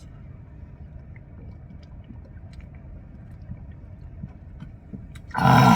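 A steady low background rumble, then near the end one short, loud burp, half a second long.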